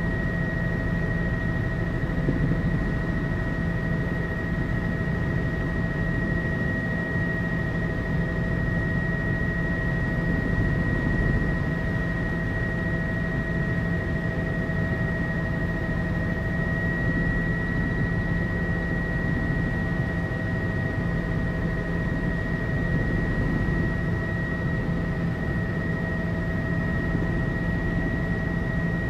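Tour helicopter in steady cruise, heard from inside the cabin: a constant rush of rotor and engine noise with a steady high whine over it.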